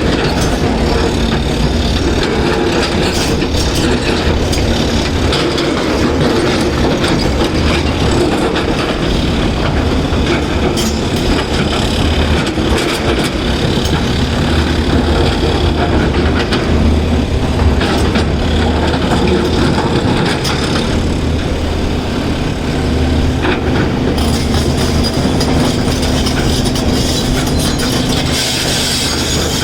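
Heavy diesel excavator engine running steadily under load, with continuous clattering of rock and steel.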